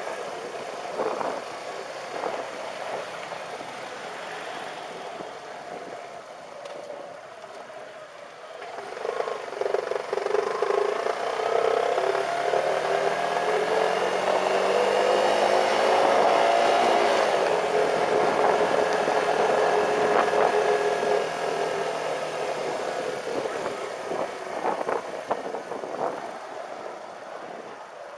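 Motorcycle engine running under way, its pitch climbing as it accelerates about a third of the way in, loudest just past the middle, then easing off, over a steady rush of wind.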